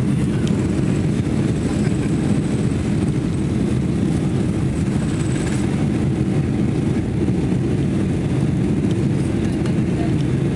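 Boeing 747 cabin noise during liftoff and initial climb: its four turbofan engines at takeoff thrust, heard from inside the cabin as a steady low rumble.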